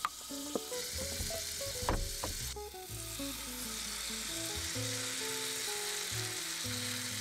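Hot fat sizzling steadily in a frying pan on a two-burner gas camping stove. In the first couple of seconds a spoon clinks a few times against a stainless steel mixing bowl as potato pancake batter is stirred.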